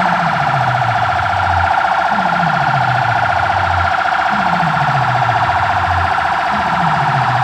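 Siren-like electronic alarm effect played loud through a DJ sound system: a fast-warbling tone over a deep bass tone that slides downward about every two seconds.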